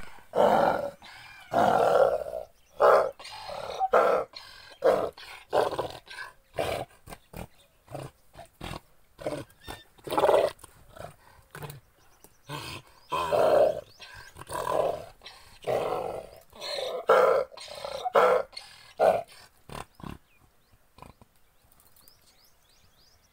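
Donkey braying: a long run of loud, rhythmic hee-haw pulses that stops about twenty seconds in.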